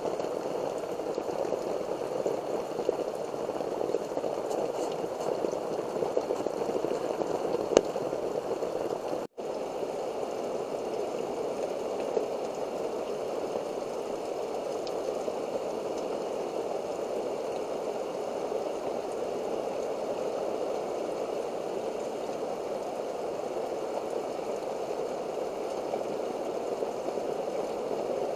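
Heavy rain falling steadily, a dense even hiss. It breaks off for an instant about nine seconds in.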